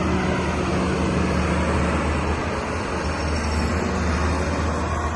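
Caterpillar 320D2L excavator's diesel engine running steadily, a continuous low hum with no revving.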